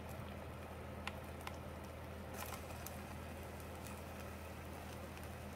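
Faint light taps and a brief scrape as a spatula pushes chopped vegetables off one nonstick skillet into another, over a low steady hum.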